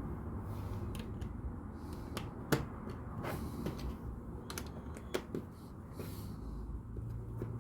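Plastic LEGO pieces clicking and tapping as they are handled and pressed together: scattered sharp clicks, the loudest about two and a half seconds in, over a low steady hum.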